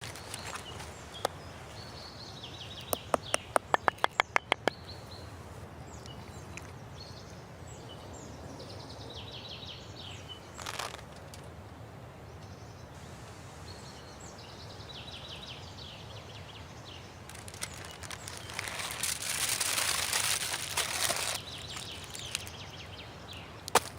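Outdoor ambience with small birds chirping at intervals. Around three to four seconds in, a quick run of about ten sharp clicks is heard. Later comes a louder stretch of hissing lasting about three seconds, and a single knock near the end.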